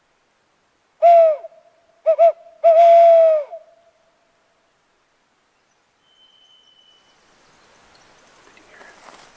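Barred-owl hooting, loud and close: one hoot, two quick short hoots, then a long hoot that drops in pitch at its end.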